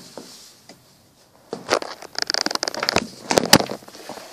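A disposable diaper rustling and crinkling as it is handled close to the microphone, with scattered sharp handling clicks. It is mostly quiet for the first second and a half, with a burst of crinkling around two seconds in.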